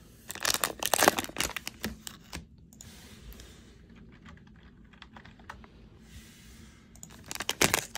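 Computer keyboard keys clicking in quick runs: a burst of rapid typing about half a second in lasting a couple of seconds, then a pause, then another quick run near the end.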